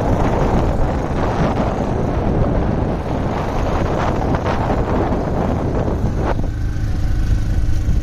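Motorcycle riding uphill, wind buffeting the microphone over the engine. About six seconds in the wind noise drops and a steady engine hum comes through.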